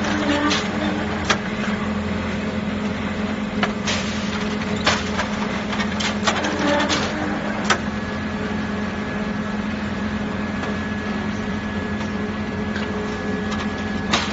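Brick-making machine running: a steady machine hum with sharp clanks scattered through the first half, and a thin high whine that joins about halfway through.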